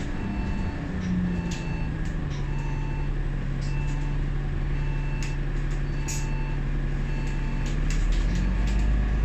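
Lower-deck cabin sound of a KMB Alexander Dennis Enviro500 MMC tri-axle double-decker bus: a steady engine and drivetrain drone, with a short electronic beep repeating about every two-thirds of a second. A deeper rumble swells near the end.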